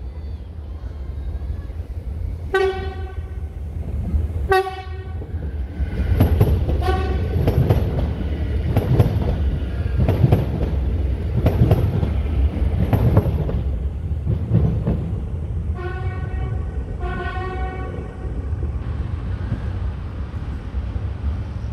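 Siemens Desiro class 460 electric train sounding its horn in short blasts as it approaches, then passing close by with a heavy rumble and rhythmic wheel clatter on the rails. Near the end a train horn gives two more short blasts.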